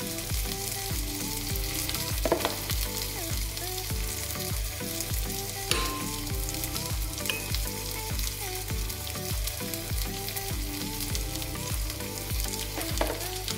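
King prawns sizzling and crackling steadily in a frying pan, under background music with a steady beat.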